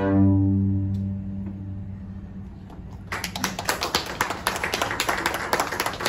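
A beginner string ensemble of violins, violas and cellos ends on a held low chord that fades away over the first two seconds or so. Applause starts about three seconds in.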